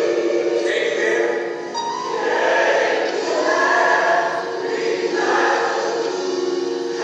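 Choir music: many voices singing together in long held notes.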